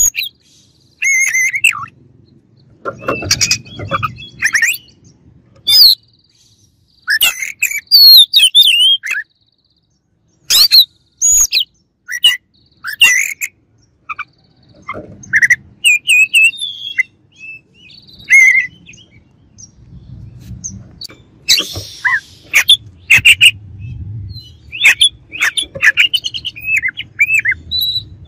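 Oriental magpie-robin singing: short phrases of rapid, varied whistles and chirps broken by brief pauses.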